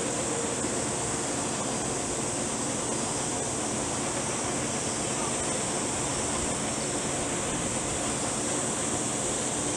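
Boeing 747-8's four jet engines on landing approach: a steady rushing noise with faint low engine tones, holding level throughout.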